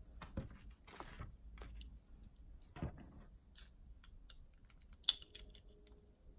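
Plastic LEGO bricks handled and pressed together: a string of small irregular clicks and rattles, with one sharper snap about five seconds in.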